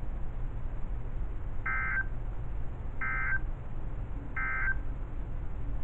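Three short bursts of NOAA Weather Radio SAME digital data tones, each about a third of a second and about 1.3 seconds apart, over the radio's steady hiss and hum. This is the Emergency Alert System end-of-message signal that closes the test broadcast.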